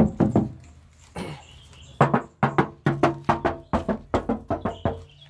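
Background music with a quick, even percussive beat of pitched strikes over a low steady tone; it drops out for about a second shortly after the start, then picks up again.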